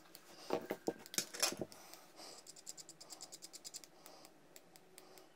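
Faint clicks from handling and firing a box mod while a freshly built single Alien-wire coil on an RDA is dry-fired at 40 watts: a few sharp clicks in the first second and a half, then a run of fast faint ticks for about two seconds.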